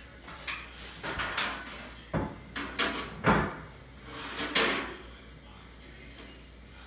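A run of irregular scuffs and knocks, a dozen or so over about four seconds, the loudest near the middle, as a cat wrestles with and kicks at a stuffed toy.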